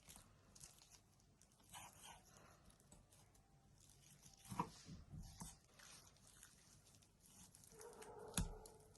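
Near silence with a few faint knocks and clicks, the loudest about halfway through and another near the end.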